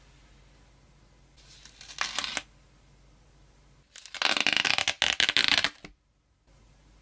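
Rustling and crackling of packaging being handled, in two bursts: a short one about two seconds in, and a longer, louder one from about four seconds to near six.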